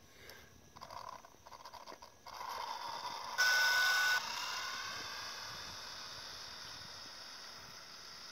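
Traxxas Rustler VXL RC truck's Castle 2200kv brushless motor on a 3S LiPo, spinning up at full throttle on a speed run: a rising electric whine that peaks sharply for under a second, then fades as the truck speeds away.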